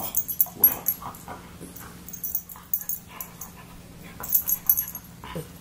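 A husky nosing and snuffling at a person's hand, with soft dog whimpers and short clusters of light, high jingling.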